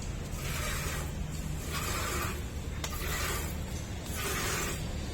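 Rhythmic scraping strokes, one about every second and a quarter, like a broom or shovel pushed over a rough floor.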